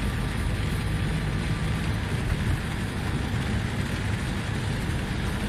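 Steady engine and road noise inside a vehicle driving through a heavy downpour, with rain beating on the body and wet tyres hissing.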